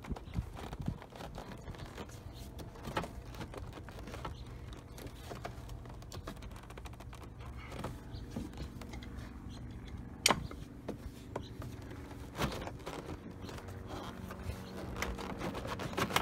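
A Jaguar XJ door trim panel being lifted and worked off the door against a stiff retaining clip: scattered clicks, creaks and knocks of plastic clips and the flexing panel, with a sharp crack about ten seconds in and another about two seconds later.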